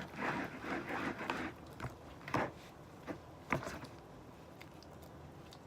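Faint handling noises: a soft rustle in the first second or so, then a few light clicks and knocks.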